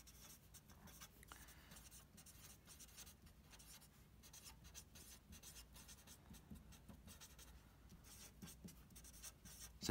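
A marker pen writing on paper: faint, quick strokes as a line of handwriting is written out.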